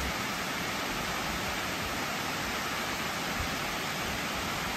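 Water pouring over the full crest of a masonry dam and falling into the pool below: a steady, even rushing noise.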